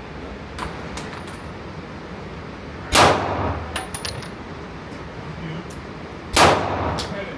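Two gunshots about three and a half seconds apart, each followed by a short ringing tail. Lighter clicks and metallic ticks fall between them.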